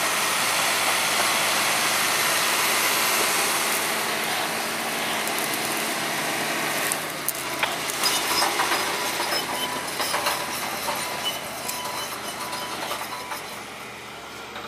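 Bulldozer running and pushing its blade through burned ground: a steady engine and track noise, joined about halfway through by many sharp cracks and crunches, growing quieter toward the end.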